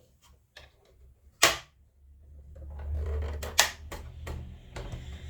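Scattered clicks and knocks of a screwdriver and screws against a plastic sewing machine cover as the screws are fitted, with one sharp click about a second and a half in and a few more after three seconds.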